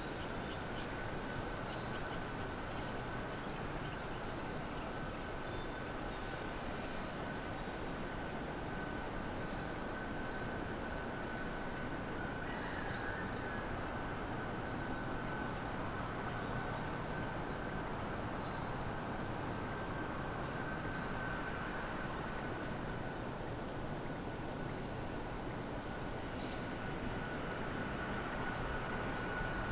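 Outdoor woodland ambience: a steady background rush with frequent short, high-pitched chirps scattered throughout and a faint steady tone underneath.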